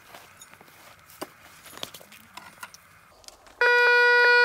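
Faint scraping and small clicks of a hand digging in loose dry soil, then about three and a half seconds in a metal detector sounds a loud, steady tone as its coil passes over the hole, signalling metal below.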